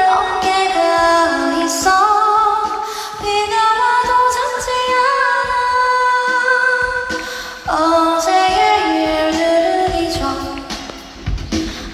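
A woman singing a cappella, unaccompanied, into a microphone over a concert sound system, holding long notes with short pauses between phrases.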